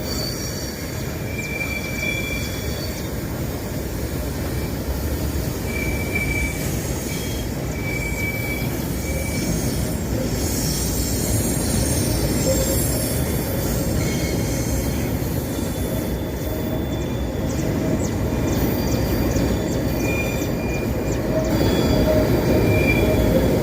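Diesel freight locomotive working at full throttle up a steep grade, a heavy steady rumble, with short high-pitched wheel squeals coming and going.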